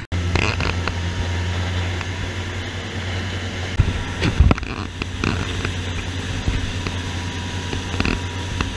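Sportfishing boat's engine running underway with a steady low drone over the rush of its wake, and a couple of sharp knocks about four seconds in.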